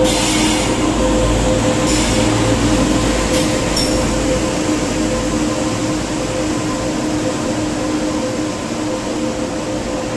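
Passenger train hauled by a WAG-9 electric locomotive pulling into a station platform: the locomotive passes and then the coaches roll by with a steady rumble and hum. A couple of faint clicks come in the first few seconds, and the deep rumble eases about halfway through.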